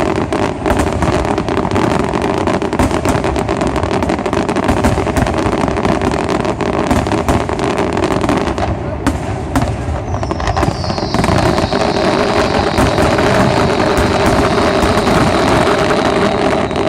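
Dense fireworks barrage: continuous bangs and crackling shells going off in rapid succession. About ten seconds in, a high whistle starts, gliding down slightly and then holding steady until near the end.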